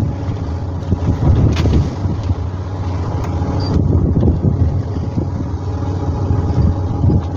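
Fishing boat's engine running steadily under way, with wind buffeting the microphone and a couple of brief knocks.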